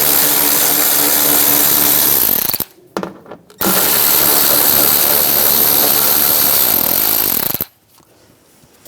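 Power tool spinning an 8 mm socket to run bolts out, in two long bursts: the first stops about two and a half seconds in, the second starts a second later and runs about four seconds before cutting off.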